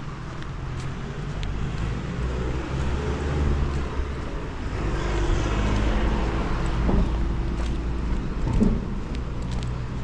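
Steady low vehicle rumble with a few faint clicks. A swell of rushing noise builds about four seconds in and fades again.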